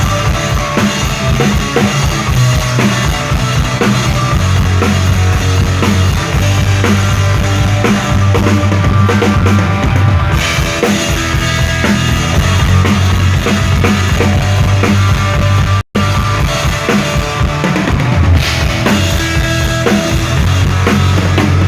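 Rock band playing live through a PA during a sound check, with the drum kit's bass drum and snare prominent over a heavy bass line. The sound cuts out completely for an instant about two-thirds of the way through.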